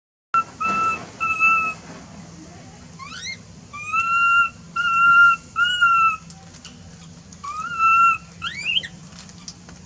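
A baby macaque giving a series of high, whistle-like coo calls, about eight short held notes, most level or dipping slightly at the end, with two quick rising squeaks among them.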